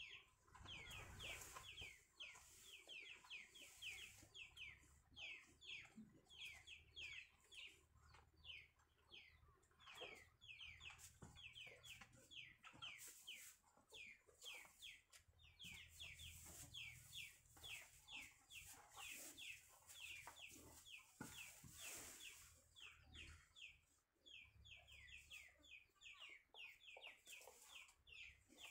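Chickens giving a fast, unbroken run of short, high, falling peeps, several a second, faint.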